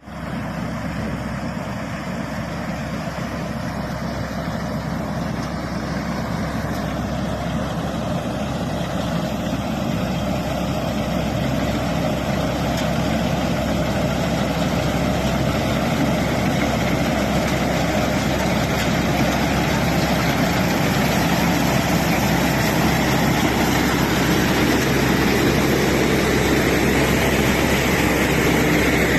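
TAMCO Pro Z3000 combine harvester running steadily, its engine and machinery a continuous mechanical din that grows gradually louder.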